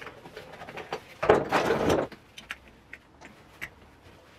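Small clicks and knocks of a brush cutter's guard and shaft being handled, with one louder scrape lasting under a second, about a second and a half in, as the guard is slid up the shaft.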